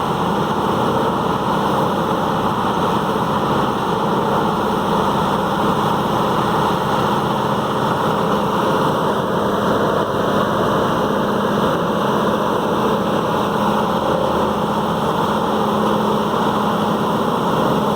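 Peterson 5710D horizontal grinder with its 1125 hp engine running, a loud, steady, unbroken drone with a constant low hum.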